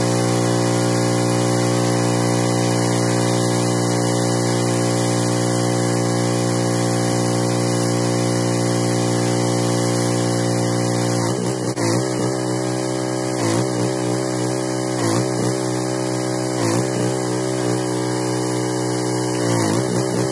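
Pressure washer engine running at a steady pitch. About halfway through, the pitch starts dipping briefly and recovering roughly every one and a half seconds, as the spray load changes.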